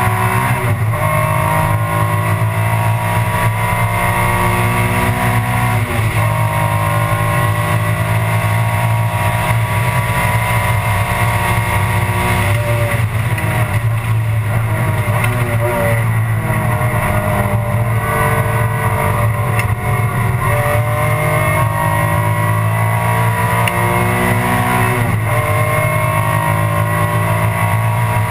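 Alfa Romeo 156 GTA race car's 3.2-litre V6 running hard, heard from inside the stripped cockpit. Its pitch steps sharply at gear changes about six seconds in and again near the end, with a choppier stretch around the middle.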